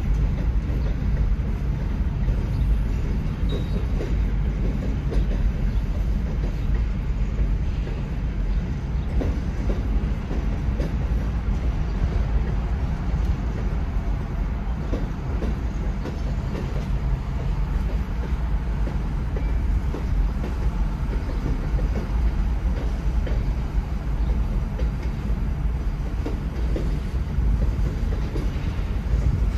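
Freight train rolling past a grade crossing, heard from inside a stopped car: a steady low rumble with irregular clacking of wheels on the rails.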